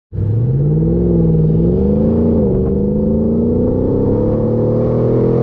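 Off-road 4x4's engine revving under load. Its pitch rises over the first two seconds, drops briefly about two and a half seconds in, then climbs slowly and holds.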